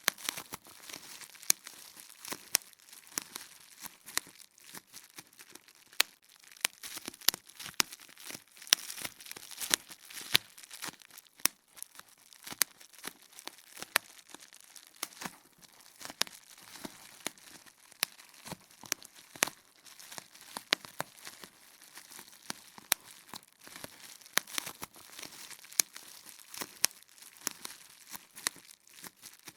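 Bubble wrap popping: irregular sharp pops, a few a second, amid the continuous crinkling of the plastic sheet.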